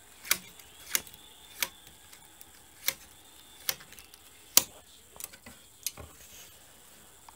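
Metal needles on an LK150 knitting machine's needle bed being pushed forward one at a time with a hand tool, bringing them into working position for a cast-on. Each needle gives a sharp click, about eight in all, spaced unevenly, roughly one every second.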